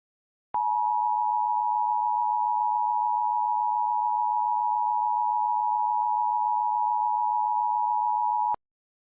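Emergency Alert System attention signal: a steady two-note electronic tone, two pitches just under 1 kHz sounding together. It starts abruptly about half a second in, holds for about eight seconds, and cuts off suddenly.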